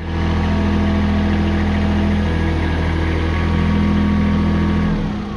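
Kubota tractor's diesel engine running steadily at idle. Near the end its low note drops away and the sound fades.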